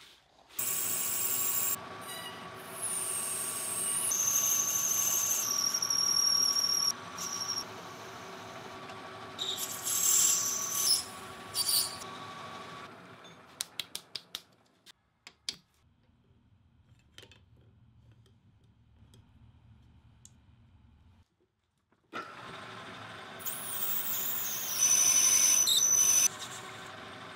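Metal lathe running and cutting brass stock, the cuts giving high squealing tones. A little past halfway it falls to a faint low hum for several seconds, then the cutting starts again, with a twist drill boring into the brass near the end.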